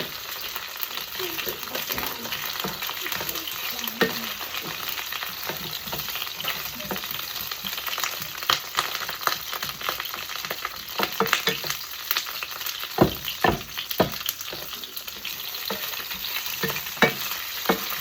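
Potstickers frying in hot oil in a pan: a steady sizzle with crackling pops of oil throughout. A few sharper knocks come around two-thirds of the way through.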